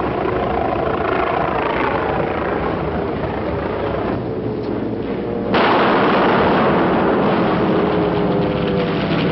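Aircraft engine drone, then about five and a half seconds in a sudden loud explosion whose roar carries on, in an old, narrow-band film soundtrack.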